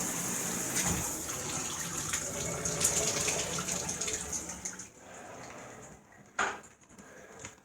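Water spraying steadily from an overhead rainfall shower head, stopping about five seconds in. A single sharp knock follows about a second and a half later.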